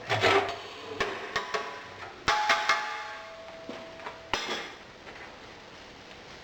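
Knocking out a sand-casting mould: a run of sharp knocks and metallic clangs, several leaving a brief ringing tone, as the iron castings and moulding box are struck free of the sand. The knocks stop a little over four seconds in.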